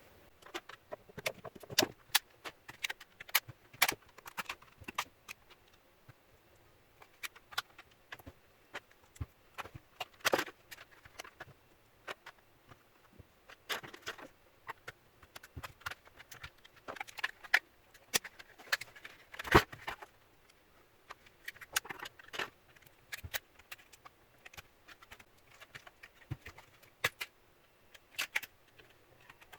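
Plastic casing of a laptop battery pack being pried open along its seam, softened with thinner: irregular sharp clicks, snaps and scrapes, with louder cracks about ten seconds in and again near twenty seconds.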